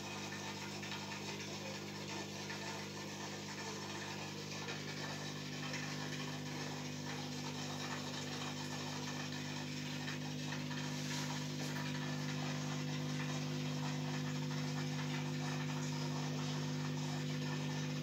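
Steady low electrical hum of an aquarium pump, with a faint hiss of moving water over it; the hum grows a little louder partway through.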